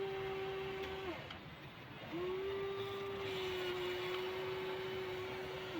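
Electric motors and gearboxes of a Huina 1593 RC excavator whining at a steady pitch: a run of about a second, a pause, then a longer run of over three seconds.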